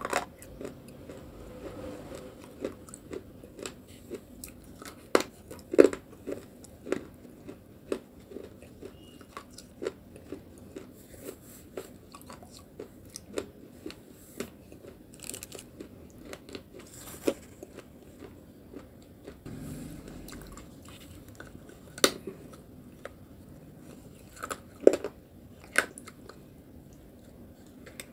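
A person biting and chewing pieces of baked clay pot coated in a soft white clay paste: irregular crisp crunches, with a few much louder bites scattered through.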